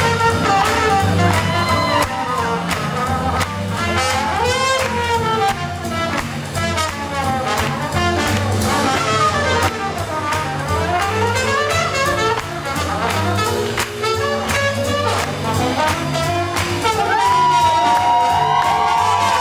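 Live swing band playing a fast swing tune: trumpet and trombone lines over a steady bass and drum beat, the horns holding long notes near the end.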